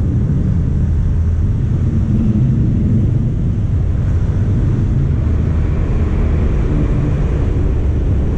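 Motorcycle engine running steadily at cruising speed while riding through a road tunnel, with the hum of surrounding car traffic.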